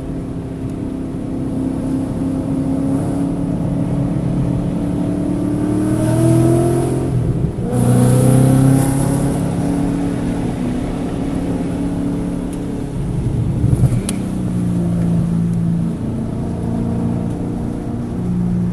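Car engine under load on a race track, misfiring on cylinders 1, 3 and 4. The revs climb around five to seven seconds in, drop sharply near seven and a half seconds as at a gear change, then hold steadier, with a brief click about fourteen seconds in.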